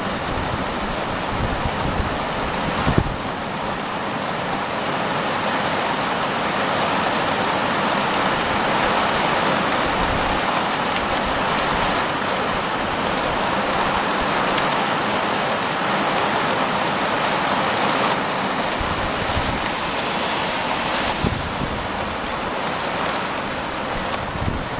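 Heavy rain falling steadily, an even rushing noise, with deep rumbles in the first few seconds and again near the end.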